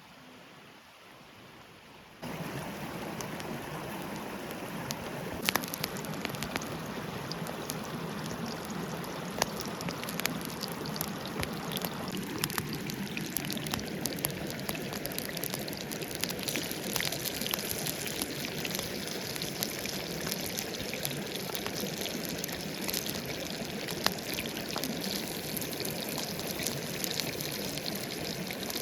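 Fish nuggets frying in hot oil over a campfire: a steady sizzle full of sharp pops and spatters, starting suddenly about two seconds in after a quieter moment.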